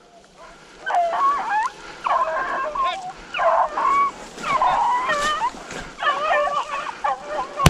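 A pack of rabbit hounds baying in short, repeated bursts, several voices overlapping, as they run a rabbit; it starts about a second in.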